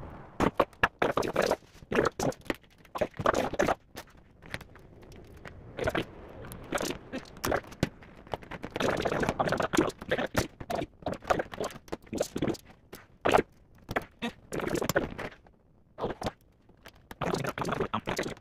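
Computer hardware being handled and taken apart by hand: irregular clicks and knocks of parts and a screwdriver, with stretches of scraping and rustling.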